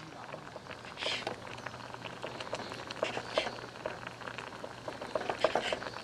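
Kitchen knife slicing Korean blood sausage on a wooden cutting board: irregular small taps and clicks, with a short scraping hiss about a second in, around three seconds in and again near the end.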